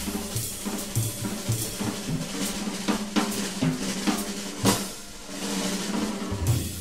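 Jazz drum kit playing a short solo break of snare and cymbal hits while the tenor saxophone drops out, with a low steady tone underneath; live club recording.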